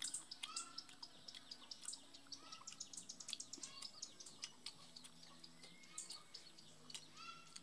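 Close, wet mouth sounds of chewing and lip-smacking while eating rice by hand, as a run of short sharp clicks. Birds chirp in the background with a few short calls and a held whistle near the end.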